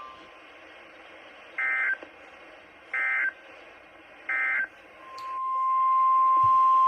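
Three short bursts of EAS digital data tones, the end-of-message signal of a NOAA Weather Radio alert, each a fraction of a second long and about a second and a half apart over faint radio hiss. About five seconds in, the steady 1050 Hz NOAA Weather Radio warning alarm tone fades in and holds.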